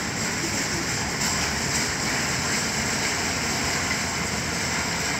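Boeing 777-200ER's twin GE90 jet engines on final approach, a steady distant rumble.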